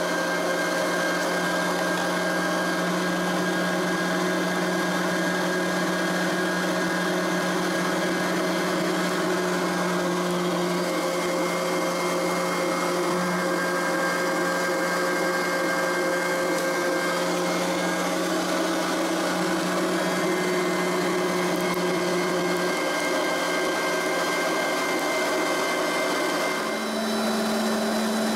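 Electric meat grinder's motor running steadily under load as meat is pushed through its fine 2 mm plate, a constant hum. Near the end it dips briefly and comes back higher in pitch.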